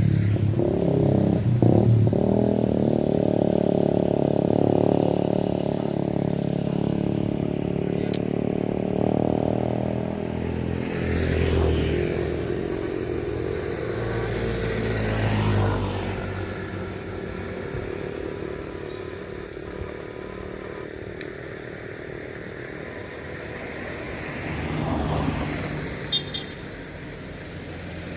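Motorcycle engine running, its pitch rising and falling as it is ridden, loudest in the first half and easing off later.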